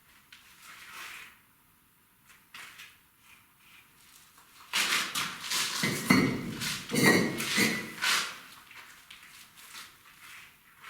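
Bricks being gathered up and set down, knocking and clinking against one another, with a run of loud clatter from about five to eight seconds in.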